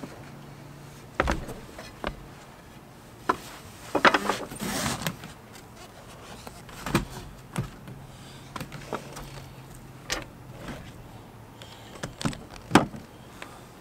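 Irregular knocks, clunks and rustling of a person moving about a sailboat's fibreglass deck and handling cordless power tools, with the sharpest knocks about a second in and near the end and a longer rustling stretch around four seconds in.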